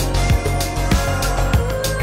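Background music with a steady beat, a strong stroke about every half second with lighter ticks between.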